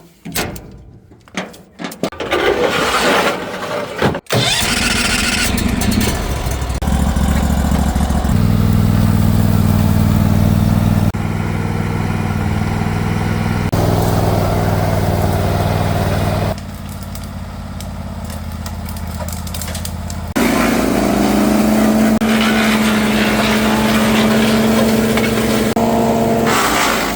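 Small petrol engine started up and then running steadily, its speed shifting up and down in steps several times.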